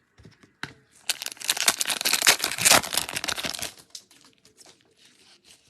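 Trading-card pack wrapper crinkling and tearing open. The crackle is densest for about three seconds, then dies down to a few faint rustles.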